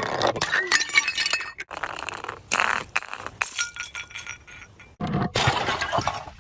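Glass bottles shattering, with shards clinking and tinkling as they scatter, in several separate bursts; a fresh burst starts abruptly about five seconds in.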